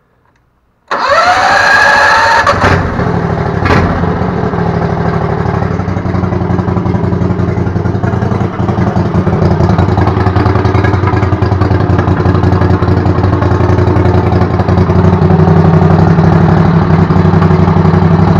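Go-kart's 670 cc engine starting on choke about a second in, climbing in pitch for a couple of seconds as it catches, then running steadily.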